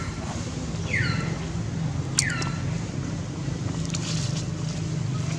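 Three short animal calls, each falling quickly in pitch, about a second apart, over a steady low hum, with a sharp click about two seconds in.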